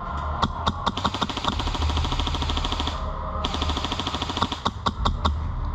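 Airsoft gun firing on full auto: an even, rapid rattle of shots for about two seconds, then a few single shots and short bursts near the end, over a steady low rumble.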